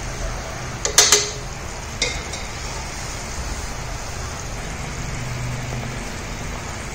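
Thick tamarind gravy bubbling and sizzling in oil in a steel kadai as it boils down, the stage where it thickens until the oil separates. A metal ladle clinks against the pan twice about a second in and once more at two seconds.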